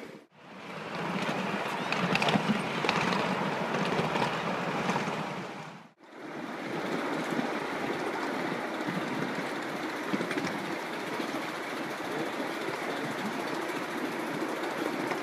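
Ride-on miniature railway train running along its track, heard from aboard: a steady rumble of wheels on rail with rattling clicks. The sound drops out briefly twice, about a third of a second in and again about six seconds in, and is steadier after the second break.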